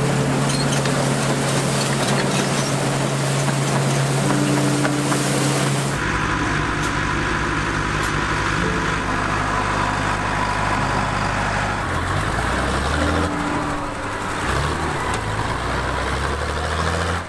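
Engines of vintage farm machinery running during field work: a steady engine note for the first six seconds, then an abrupt change to a different, lower engine sound that shifts again about twelve seconds in.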